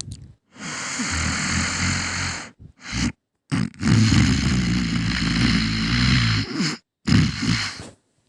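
Loud snoring: long rasping snores of two to three seconds, each with a low fluttering rattle, broken by a few short snorts.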